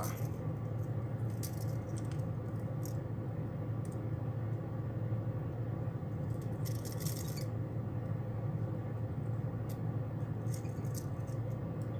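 Light metallic clicks and rattles of a BKK treble hook and split ring being handled on the tail of a Whopper Plopper lure, a few scattered clinks with a short rattle about seven seconds in, over a steady low hum.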